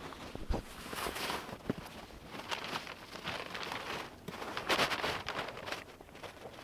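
Footsteps in snow and a plastic sled loaded with wood chips being dragged over the snow, in uneven noisy strokes.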